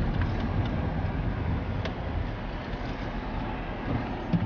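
Car road noise in city traffic: a steady low rumble of engine and tyres, with a few faint ticks and a brief knock near the end.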